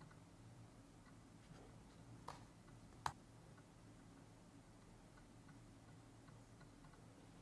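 Near silence: low room hum with two sharp clicks about two and three seconds in, the second louder, and a few fainter ticks, from a computer mouse clicking through pages.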